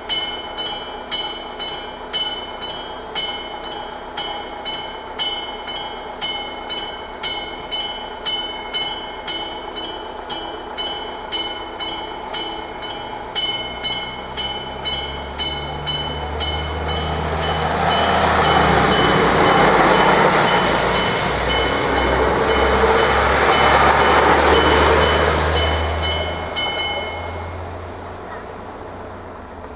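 AŽD 71 level-crossing warning bell striking in a steady rhythm, a little under two strokes a second, while a train's engine and wheel noise swells and passes over the crossing, loudest past the middle. The bell stops near the end, once the train has cleared and the crossing switches off.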